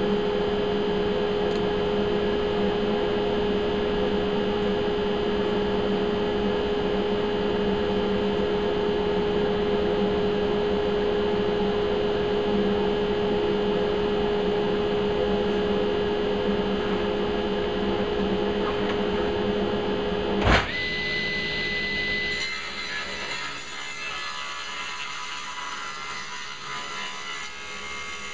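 An electric woodshop machine runs steadily with a strong hum. About twenty seconds in, a sharp click comes and the hum stops, leaving a higher whine and hiss that slowly fade.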